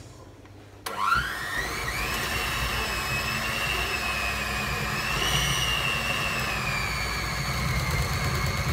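Electric hand mixer switched on about a second in, its motor whine rising as it spins up and then running steadily, beaters whipping a half-set mixture of shea, cocoa and mango butters and oils.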